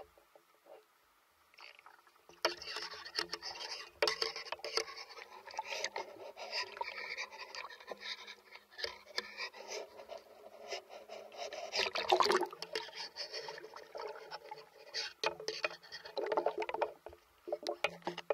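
Water sloshing and gurgling around an action camera moving through and at the surface of the water, with dense crackling and clicking. It starts faint and grows louder about two and a half seconds in.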